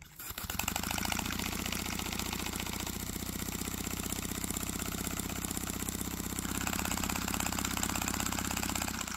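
Single-cylinder paper air engine running with rapid, even exhaust pulses through its homemade paper exhaust. From about three seconds in until about six and a half seconds the exhaust outlet is covered by a finger and the engine sounds quieter, then it opens up again.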